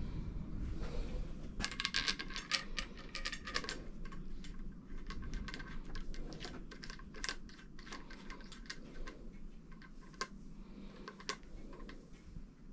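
Small metallic clicks and taps of a hex key and metal parts as the bike's stem top cap and its bolt are fitted, with a quick run of clicks in the first few seconds and scattered ones after.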